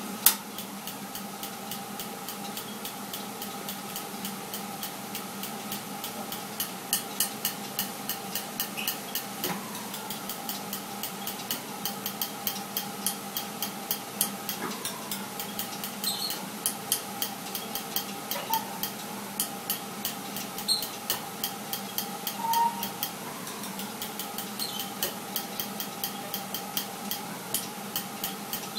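Electric spark igniter of a gas burner ticking with rapid, evenly spaced clicks over a steady hum, with one louder click right at the start.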